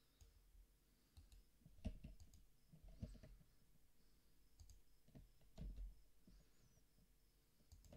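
Faint, scattered clicks of a computer mouse and keyboard, a handful spread over several seconds against near silence.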